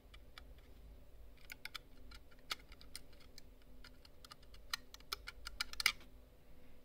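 Irregular small sharp clicks and ticks from a computer mouse's bare circuit board, its microswitches and scroll wheel, as it is handled during repair of a dead left button, with a quick run of clicks near the end.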